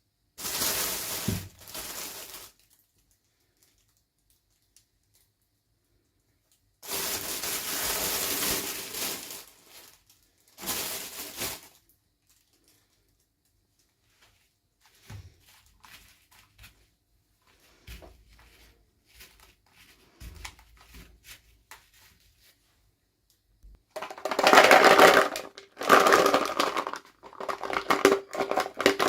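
Toy packaging being opened: plastic and paper crinkling and tearing in several separate bursts, with small clicks and taps of handling between them. A denser, louder run of crinkling and quick clicks begins about four-fifths of the way through.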